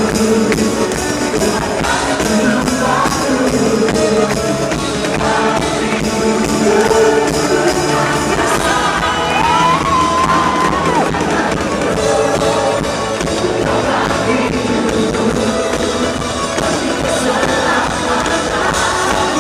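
Live praise-and-worship music: a band playing with singing, including a long held, wavering sung note about halfway through.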